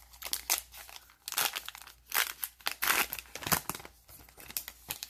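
Foil-lined wrapper of a Topps Heritage baseball card pack crinkling as it is torn and peeled open by hand, in a run of irregular crackly bursts.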